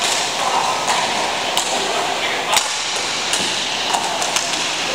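Indoor hockey rink game sound: a steady hubbub of voices with sharp clacks of sticks and puck, about half a dozen through the stretch.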